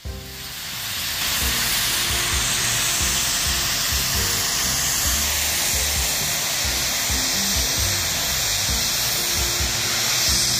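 Snow guns blowing artificial snow onto the ski slope: a loud, steady hiss that fades up over about the first second, with low rumbles of wind buffeting the microphone.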